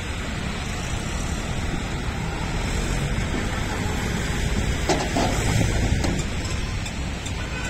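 Steady rumble of road traffic passing close by, with a short clatter about five seconds in.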